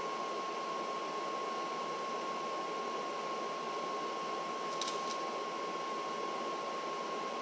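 Steady room background noise, a fan-like hiss with a thin constant whine, and one brief soft click about five seconds in.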